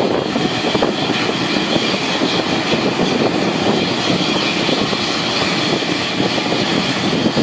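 Boeing 747-400 freighter's turbines running during pushback: a steady whine over a continuous rumble.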